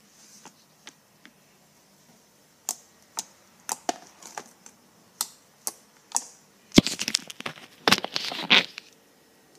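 Fluffy slime being squished and pulled by hand, giving sharp pops and crackles. A few scattered clicks come first, then a dense run of crackling near the end.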